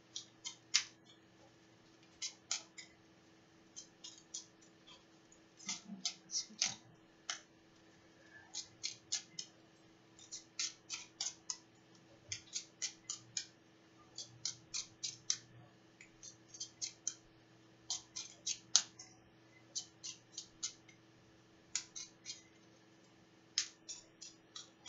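A deck of oracle cards being shuffled by hand: quick runs of crisp card clicks, a few at a time, with short pauses between.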